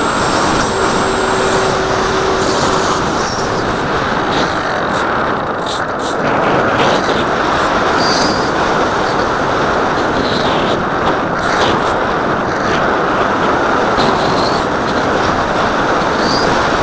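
Steady rush of wind and airflow buffeting the microphone of a nose-mounted camera on an AXN Floater Jet foam RC plane in flight, with the plane's electric pusher motor and propeller running underneath. A steady tone shows for a couple of seconds near the start.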